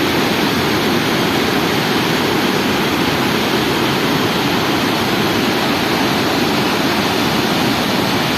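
Water pouring over an overflowing dam spillway: a loud, steady rush with no change.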